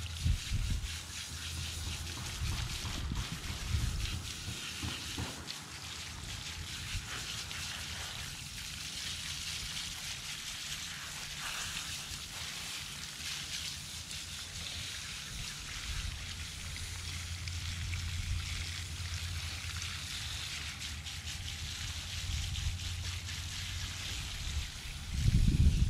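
Garden hose spray nozzle running steadily, water spattering onto a small dog's wet coat and the gravel beneath, with a low rumble underneath.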